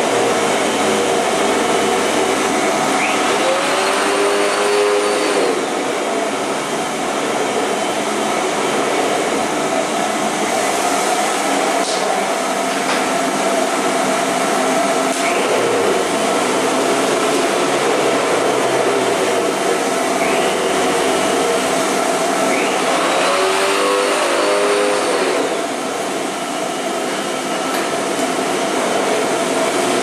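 Vacuum cleaner running steadily: a continuous loud rushing hum, with a brief sweeping shift in tone twice, about twenty seconds apart.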